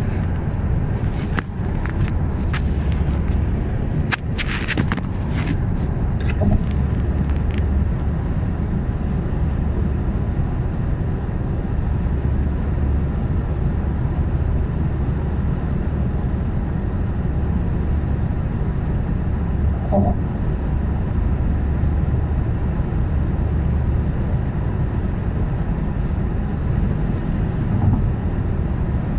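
Steady low rumble of a car's road and engine noise heard inside the cabin while driving at highway speed, with a scatter of sharp clicks in the first several seconds.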